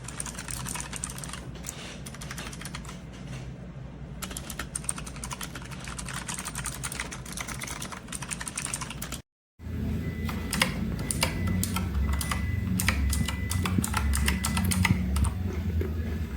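Fast typing on a Razer Huntsman Mini keyboard with clicky optical switches: a dense run of sharp key clicks. The sound cuts out completely for a moment about nine seconds in, then the clicking resumes over a low hum.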